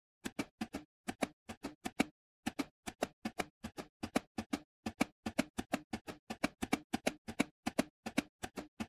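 Simulated Enigma I cipher machine keyboard being typed on: a fast, even run of short mechanical key clicks, about four a second, with a brief pause about two seconds in.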